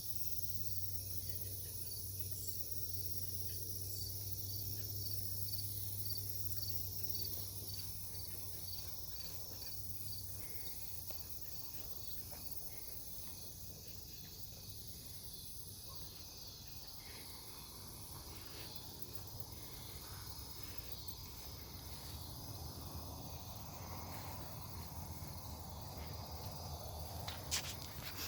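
Night insect chorus of cicadas and crickets: a steady high-pitched drone, with a regular chirp about twice a second through the first half. A low hum fades out about ten seconds in, and a single sharp click comes near the end.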